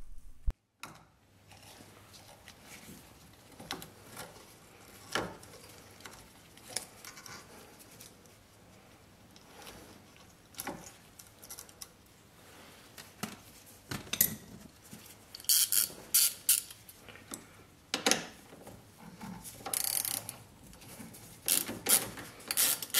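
Small hand tools working on a steering-column light switch: scattered metal clicks and taps as screwdrivers are set against the switch and screws are turned, with a few louder scraping rasps in the second half.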